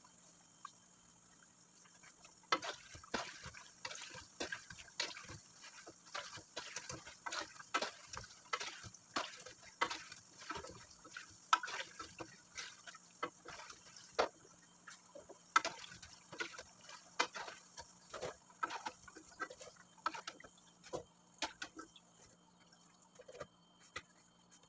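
Hot oil crackling and popping in a wok as fried dough balls are stirred and scooped out with a slotted metal spoon. The crackles start a couple of seconds in, come thick and irregular, and thin out near the end.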